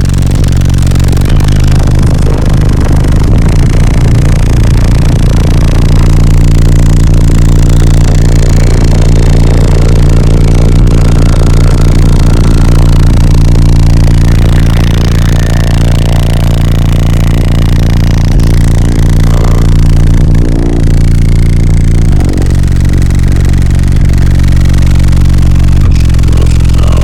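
Car audio system of sixteen 12-inch subwoofers playing music at full volume: deep, sustained bass notes that dominate everything, shifting pitch about 22 seconds in and again near the end.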